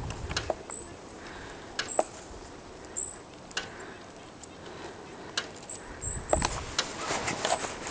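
Bicycle ride filmed with the camera held or mounted on the bike: scattered clicks and knocks as the bike and camera jolt over the path. A low wind rumble on the microphone picks up about six seconds in.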